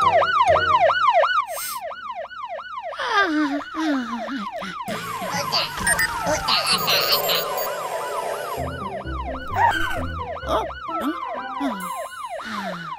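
Cartoon alarm siren wailing in rapid rises and falls, about four a second, with a short break partway through, over music and other gliding sound effects.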